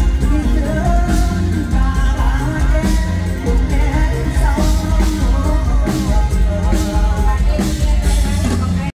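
Thai lam music from a live band: a singer's wavering melody over a heavy, steady bass-and-drum beat. The sound drops out for an instant right at the end.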